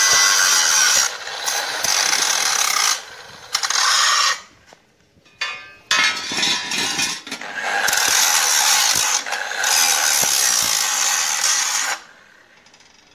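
Angle grinder grinding steel on a welded flat-bar stair-step frame, in several bursts: it breaks off briefly about three seconds in and again for about a second and a half a little later, then grinds steadily until it stops about twelve seconds in.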